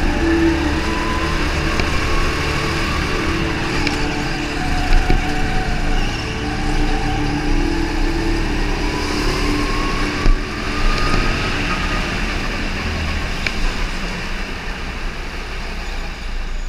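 Indoor racing kart engine heard from onboard under way, its pitch rising and falling as the kart accelerates out of corners and lifts for the next, easing off and getting a little quieter near the end.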